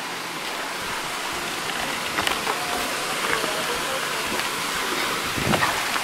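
Steady rush of water flowing over the rocks of a stream and waterfall. A few footstep clicks on rock, and a dull thump near the end.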